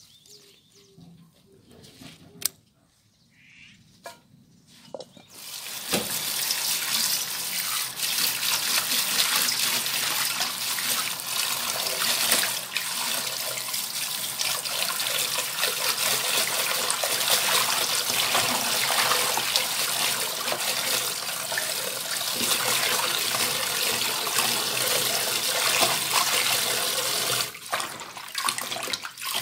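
Tap water pouring into a bowl of bangpung greens (Peucedanum japonicum) as they are rinsed by hand. The water starts about six seconds in, runs steadily, and eases off near the end.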